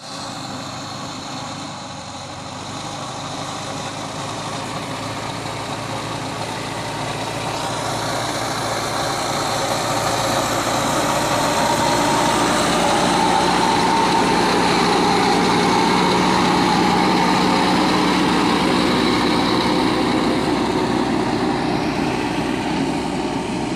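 Diesel engine of a Mahindra Earthmaster SX90 backhoe loader running steadily, growing louder over the first dozen seconds and then easing off slightly.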